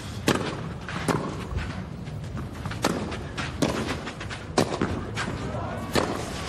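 Tennis rackets striking the ball back and forth in a rally, sharp hits about once a second, heard over a steady background hiss.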